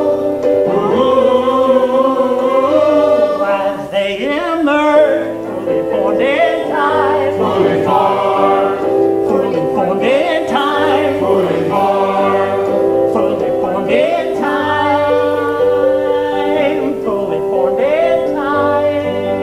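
Live choral singing from a musical number: several voices together holding long sustained notes, over low sustained accompanying notes.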